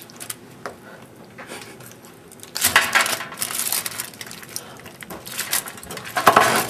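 Aluminium foil crinkling under gloved hands: a few light clicks at first, then dense crackling from about two and a half seconds in.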